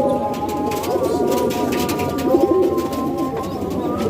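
Domestic pigeons cooing, several low throaty coos overlapping.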